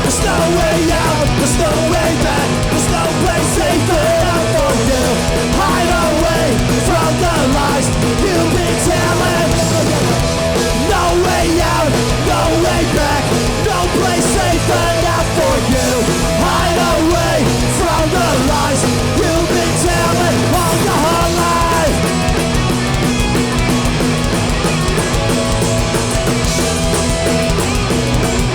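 A hardcore punk band playing live, loud and steady: distorted electric guitars, bass and drums.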